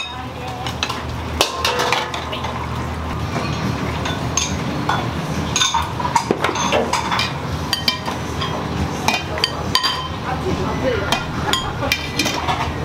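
Commercial kitchen work: utensils, bowls and pans clinking and knocking at irregular intervals over a steady low hum of kitchen equipment.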